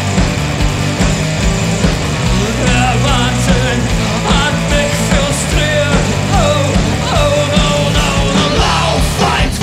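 Live rock band playing an instrumental passage: electric guitar, bass, drums and keyboard, with a lead melody that bends and wavers in pitch over a steady, heavy low end.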